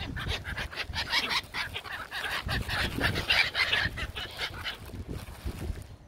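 A flock of black-headed gulls calling, many short harsh cries overlapping one another, thinning out after about five seconds.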